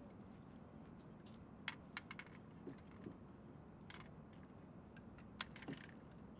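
Scattered light plastic clicks and taps as quadcopter drones are handled and set against hard plastic cases: a quick cluster about two seconds in, a few single ones, and a last pair near the end, over a faint steady background.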